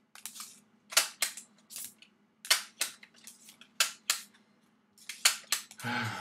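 Scissors snipping: about a dozen short, sharp snips, often in quick pairs, over a faint steady hum.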